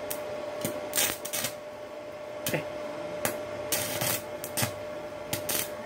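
Electrode arc welding from a Hilda inverter welder set to 100 amps: the arc crackles and sputters with irregular pops as the rod burns, over a steady tone.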